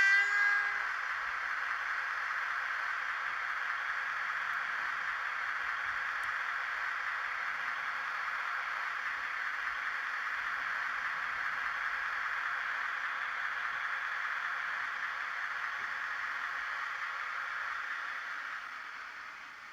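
A horn blast from a sound-equipped N-gauge model diesel locomotive's decoder stops just under a second in. It is followed by a steady hiss, strongest in the upper-middle range, that fades away near the end.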